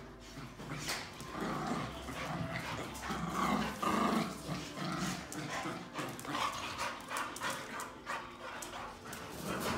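Several dogs play-fighting, growling and barking, loudest about three to four seconds in.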